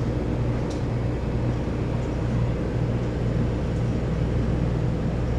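A steady low hum, like a machine running, with no clear changes.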